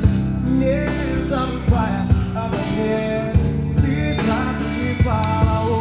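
Background rock song with a steady drum beat, guitar and a sung melody line.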